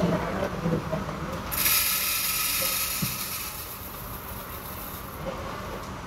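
Coffee machine hissing for almost four seconds, starting and stopping sharply.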